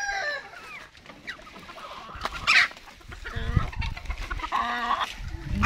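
Gamefowl hens and a rooster clucking, with one short loud call about two and a half seconds in.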